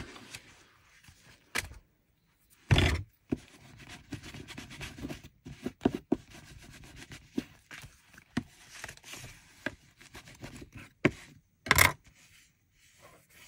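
Paper pages of a handmade junk journal rustling and rubbing as it is handled, with scattered clicks and a few sharp knocks, the loudest about 3 seconds in and again near 12 seconds, as a plastic bulldog clip is handled.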